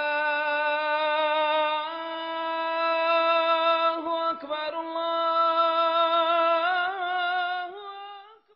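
A single voice chanting in long held notes: it slides up into the first note, steps up in pitch about two seconds in, and adds wavering turns in the middle and again near the end before fading out.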